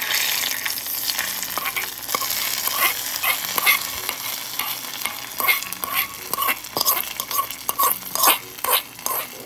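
Hot tempering of mustard seeds, fenugreek, shallots and curry leaves in oil poured into a pan of fish curry, sizzling loudly from the moment it hits, with many sharp clicks and crackles.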